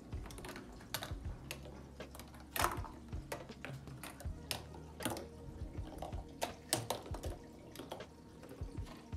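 Homemade chain-reaction machine running: ping-pong balls and plastic parts clicking, tapping and rattling along orange plastic track, K'NEX pieces and wooden sticks. The clicks are light and irregular, with a few louder knocks.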